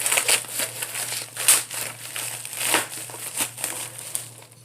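Packaging being opened by hand: irregular crinkling and rustling, loudest about a second and a half in, over a faint steady low hum.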